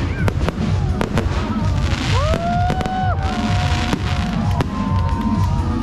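Aerial fireworks bursting overhead: a run of sharp bangs and crackles over a continuous low rumble. A drawn-out rising tone comes in about two seconds in and holds for about a second.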